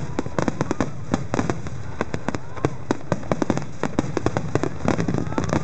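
Fireworks bursting in rapid succession: a dense run of sharp bangs and crackles, several a second, over a steady rumble.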